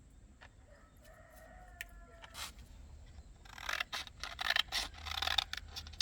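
A rooster crowing in the background: one long, steady call about a second in. From about three and a half seconds in comes a louder run of clattering and scraping.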